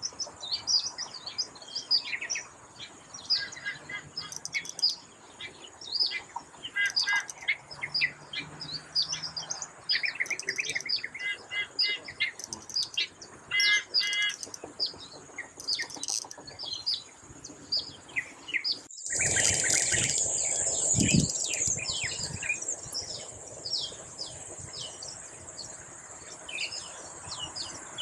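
Weaver birds chattering: a dense, continuous run of quick high chirps and trills. About two-thirds of the way through, the sound cuts abruptly to a louder recording where the chirps go on over a steady high insect buzz and a brief low rumble.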